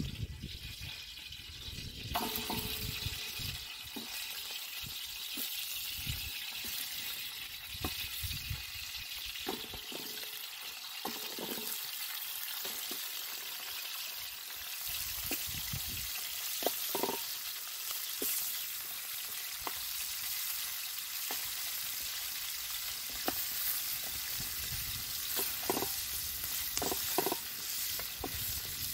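Raw chicken pieces frying in hot corn oil in a wide aluminium pan over a wood fire: a steady sizzle that starts about two seconds in as the first pieces go in, with scattered light knocks and taps as more pieces are laid in.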